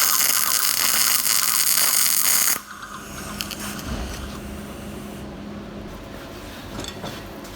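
MIG welding arc crackling with a dense, steady hiss as a 1.2 mm solid wire is run under mixed shielding gas on thick steel plate. The arc cuts off suddenly about two and a half seconds in, leaving a low steady hum.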